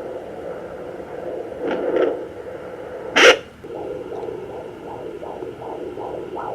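Pocket fetal Doppler's speaker hissing with static as the probe searches the belly; a little past halfway a loud sharp noise, then the fetal heartbeat comes through as a fast, even pulse of about three beats a second.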